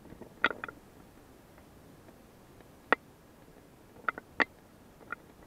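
A handful of sharp, scattered clicks and knocks: one strong one about half a second in with two small follow-ups, another strong one near three seconds, and a quick cluster of three around four seconds, then a last faint one.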